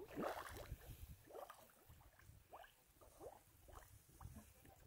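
Mud volcano bubbling: gas bubbles burst through wet mud in a string of soft plops and gurgles, each rising in pitch, two or three a second, the loudest just after the start.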